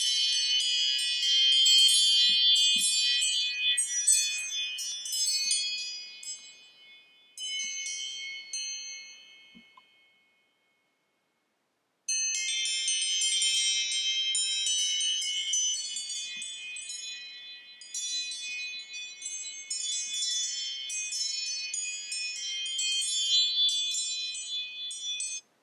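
iPhone alarm ringing: a bright, tinkling chime melody. It fades away about ten seconds in, starts again about two seconds later, and cuts off suddenly near the end.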